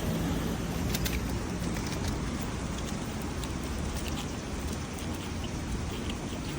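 Steady outdoor ambience heard from a window: an even wash of noise with a low rumble, a faint low hum that fades out about a second and a half in, and scattered small ticks.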